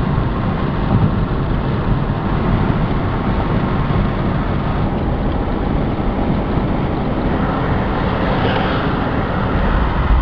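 Steady road and wind noise of a car driving at speed, heard from inside the cabin, with a heavy low rumble.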